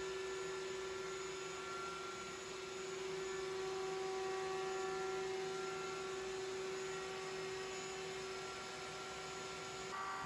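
An electric motor running steadily with a constant whine over a hum; the tone shifts slightly near the end.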